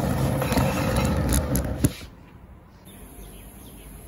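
Rustling and bumping of the recording phone or camera being handled and moved, ending in a sharp knock about two seconds in as it is set down. Quieter outdoor background with faint bird chirps follows.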